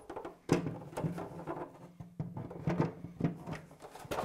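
Black plastic floor tray of a Festool MW 1000 mobile workshop being handled and lined up on its aluminium profiles: a series of light, irregular knocks and clatters of plastic against metal.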